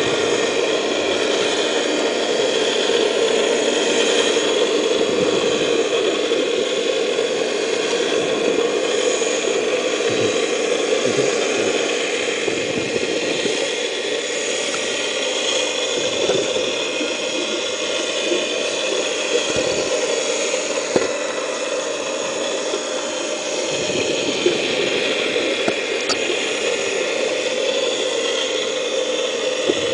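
Vortex TORNADO 4-inch venturi dredge running, heard underwater: a steady mechanical drone and rush of water, with scattered sharp clicks in the second half.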